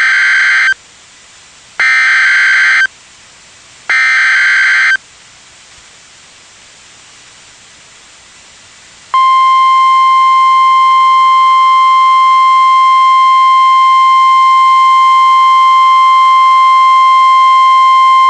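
Emergency Alert System signal on NOAA Weather Radio: three buzzing digital header data bursts, each about a second long and about two seconds apart, then after a pause of about four seconds a steady single-pitched warning alarm tone that holds unbroken. It is the attention signal that precedes a tornado warning message.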